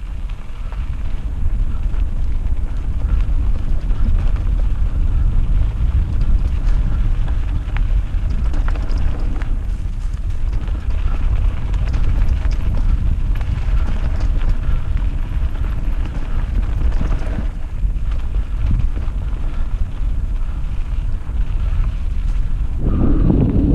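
Mountain bike riding over a rough trail: wind rumbling on the action-camera microphone with a steady run of small rattles and knocks from the bike and tyres. About 23 seconds in, a louder rushing noise comes in.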